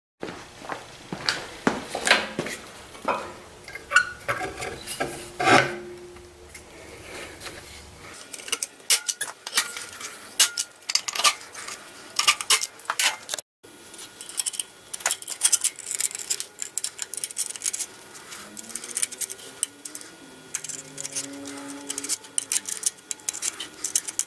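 Steel sockets clinking and clicking against metal as they are handled and set onto socket rails on an aluminum plate: many irregular sharp clinks, with a brief break about halfway through.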